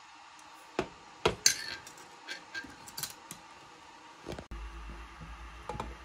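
Dishes and cutlery clinking and knocking: three sharp clinks in quick succession about a second in, then several lighter ones. About four and a half seconds in a low steady hum starts abruptly, with a couple more clinks near the end.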